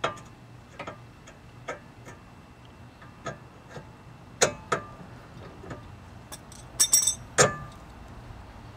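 Scattered metallic clicks and clinks as a new outer tie rod end is worked by hand into place against the steering knuckle. A tight cluster of sharper knocks about seven seconds in is the loudest part.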